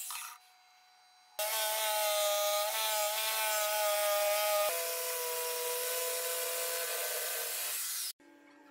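Small handheld power tool cutting into a block of wood: it starts abruptly about a second and a half in with a high whine, drops in pitch about halfway through, and cuts off suddenly near the end.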